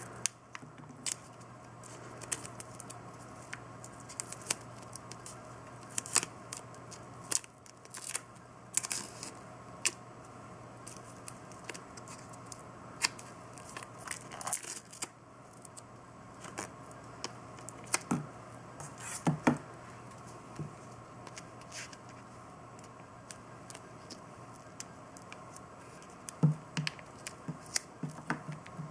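Masking tape being pulled off the roll, torn and pressed by hand around a water-cooling pump block: irregular rips, crinkles and small taps with pauses between them.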